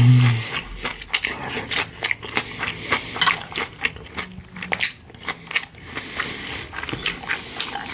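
Close-miked chewing and biting of food, with frequent short crunches at an irregular pace. A brief low hum comes at the very start.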